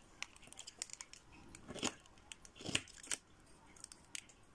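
Two short scrapes of a scraper dragged across a metal nail-stamping plate, clearing excess stamping polish off it, about two and three seconds in, amid light clicks and taps of handling.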